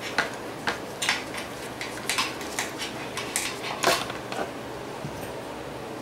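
Light metallic clinks and clicks from handling tools and parts: about ten short, irregular knocks, the loudest about four seconds in.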